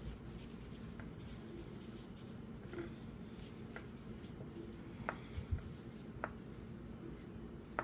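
A cloth towel rubbing and wiping over the steel frame and cylinder of a .22 revolver, with several light clicks of the metal being handled in the second half.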